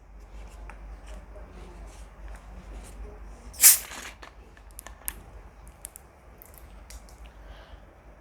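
A 2-litre plastic Coke bottle being unscrewed: one sharp hiss of escaping carbonation lasting about half a second, a little over three and a half seconds in. Around it come light clicks and crackles of the plastic bottle and cap being handled.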